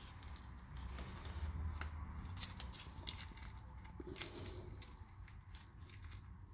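Faint small clicks and crackles of a sticker decal being picked at with a fingernail and peeled off a bike frame, over a low rumble.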